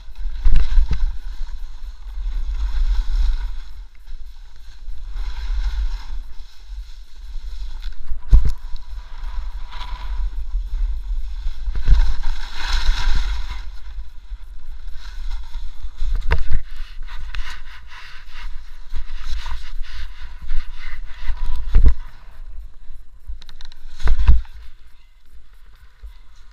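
Snowboard sliding and scraping over packed snow, with wind buffeting a helmet-mounted camera's microphone as a steady low rumble. Four sharp thumps come as the board hits bumps, and the sliding eases off near the end as the rider stops.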